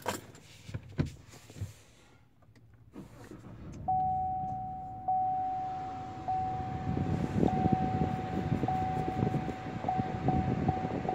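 A few clicks of key fobs set down in the console, then the 2018 Chevrolet Tahoe's V8 is push-button started about three seconds in and runs at idle, heard from inside the cabin. A single-pitched dashboard warning chime repeats about once a second and comes faster near the end.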